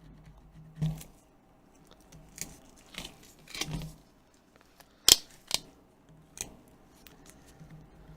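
A plastic plectrum scraping old screen adhesive off a tablet frame in short, irregular strokes, with a sharp click about five seconds in.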